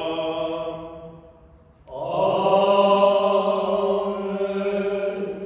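A male voice chants the last words of the Mass's opening prayer on a steady pitch, fading out about a second in. After a short pause comes a louder sung Amen, held for about three seconds.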